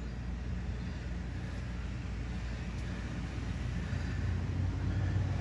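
A steady low mechanical hum, growing slightly louder about four seconds in.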